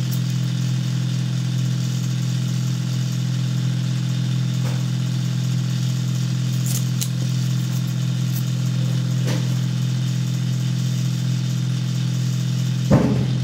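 A steady low mechanical hum, engine-like, that does not change throughout, with a few faint small clicks and one short sharp knock near the end.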